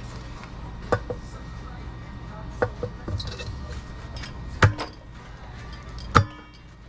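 Sharp knocks and clicks as a motorcycle rear wheel with a new rear sprocket is handled and shifted about, about seven in all in pairs, the loudest two-thirds of the way in and near the end.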